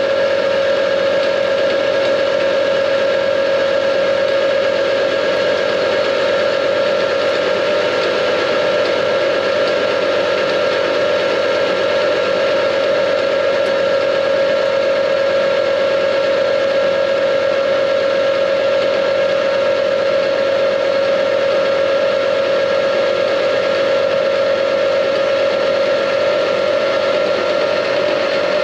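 Metal lathe running, turning a metal bar down to size while the carriage moves along it. The sound is a steady whine over a noisy hiss, with no change in pitch.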